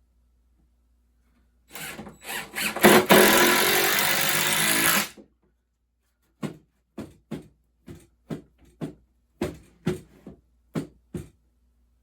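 Power drill run in a few short bursts, then held for about two seconds before it stops, followed by a series of about a dozen short knocks.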